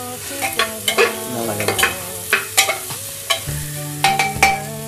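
A metal ladle stirs mixed vegetables frying in an aluminium pressure cooker, scraping and knocking against the pot about two or three times a second over a light sizzle.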